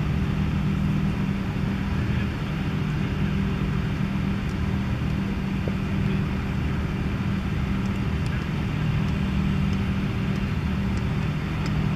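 A steady low mechanical hum over a constant rushing noise, unchanging throughout.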